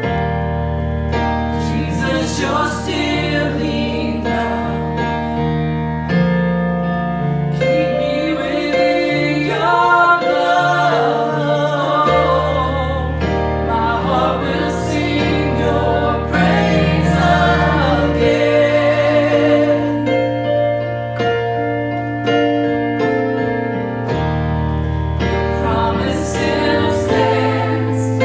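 Worship music: a gospel-style song with keyboard, held bass notes and singing.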